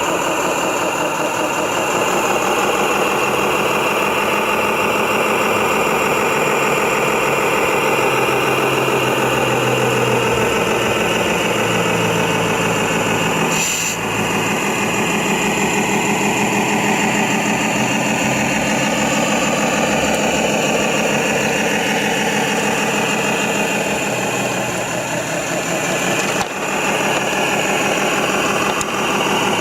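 Radio-controlled trucks and construction machines running: a steady engine sound with no break, interrupted by a brief click about halfway through and another near the end.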